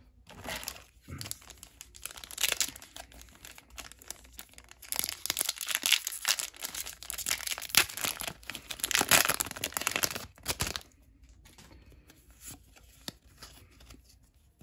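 Foil wrapper of a Pokémon card booster pack crinkling and tearing as it is pulled from the box and ripped open, loudest in the middle stretch. After about eleven seconds it drops to quiet rustling as the cards are taken out.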